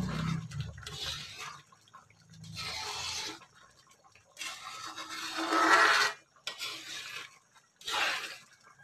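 A spoon stirring thick, simmering chocolate rice porridge in an aluminium pan, in separate wet scraping strokes roughly a second apart, the loudest a little past the middle.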